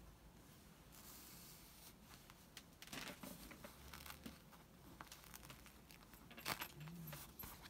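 Faint rustling and crinkling of fusible appliqué fabric pieces and a pressing sheet being handled and smoothed down by hand, with a few light clicks.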